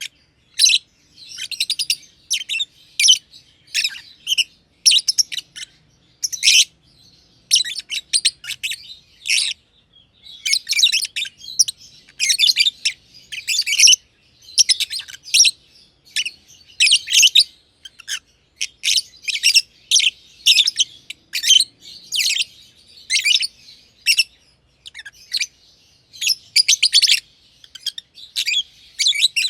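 Black-masked (personata) lovebirds chirping: rapid runs of short, high, shrill chirps in quick bursts, broken by brief pauses.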